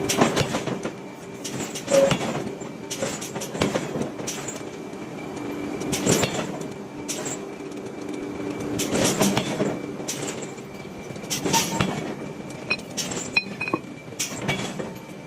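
Heavy metal-on-metal blows and clanks of forging steel, coming irregularly a second to a few seconds apart, some in quick clusters, over a steady machine hum.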